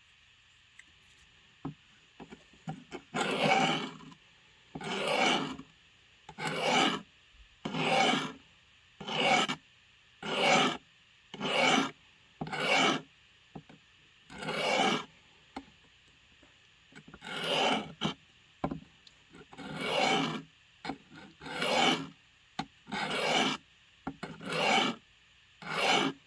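A blade's edge being sharpened by hand: about sixteen slow rasping strokes, a little over a second apart, after a few light clicks, working up a burr along the edge.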